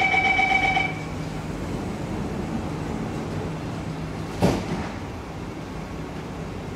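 Door-closing warning tone of a Kawasaki–CRRC Sifang C151B MRT train, a steady pitched tone that stops about a second in. It is followed by the steady hum of the train car, with one sharp loud thud about four and a half seconds in.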